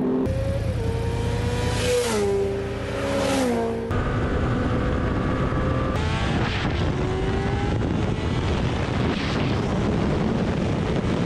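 Engines accelerating hard at full throttle, the pitch stepping down at two upshifts in the first few seconds. Later comes a Honda CBR600RR's inline-four revving up through the gears under heavy wind rush.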